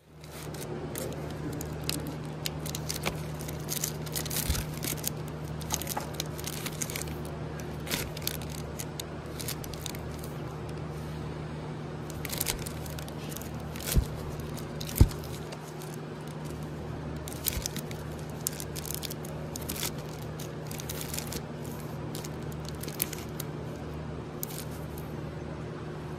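Vinyl LP records in plastic sleeves being flipped through in a crate: repeated short scraping and crinkling of the sleeves rubbing against one another, over a steady low hum. Two sharp thumps about a second apart, near the middle, are the loudest sounds.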